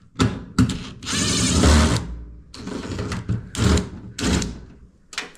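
Power screwdriver running in short bursts to back out a screw from the washer's panel, with a longer run of about a second. Sharp clicks of tool and metal come between the runs.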